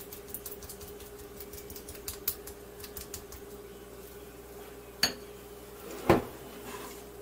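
A metal spoon scraping and tapping against a bowl and a plastic container as frozen gelato is scooped out, in quick small clicks. A sharper knock comes about five seconds in and the loudest one about a second later. A faint steady hum sits underneath.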